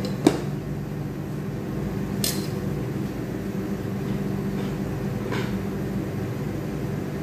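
Steady electric hum of a kitchen appliance or fan running, with one sharp clink of a utensil set down against a pot right at the start and two faint clicks later on.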